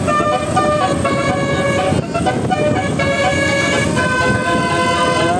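Bus telolet horn, a set of trumpet-bell air horns, playing a tune of held notes that step from pitch to pitch, with a rising glide near the end, over a steady low rumble.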